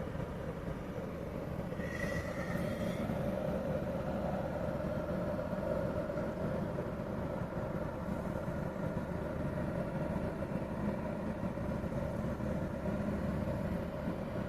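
Steady engine drone and rumble, with a held tone that swells slightly in the middle.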